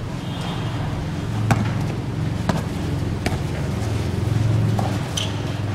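A basketball bouncing on the court several times, about a second apart, over a steady low background rumble.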